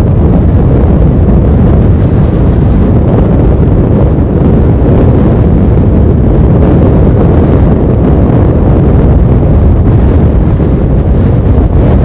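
Loud, steady wind buffeting the microphone of a camera on a moving motorcycle, riding in strong wind, with the bike's running noise mixed underneath.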